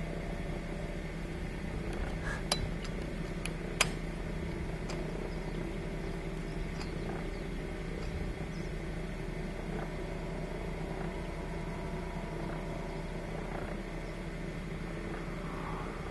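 Steady low background hum with a light hiss, broken by two sharp clicks about two and a half and four seconds in.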